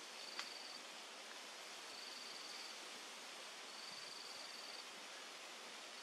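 An insect trilling in short, high, even phrases about every second and a half over a steady outdoor hiss, with one sharp click about half a second in.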